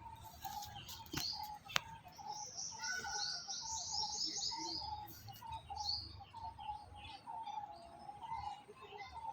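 Birds calling: a quick run of high chirps lasts about three seconds in the middle, over a lower call that repeats throughout. Two sharp clicks come in the first two seconds.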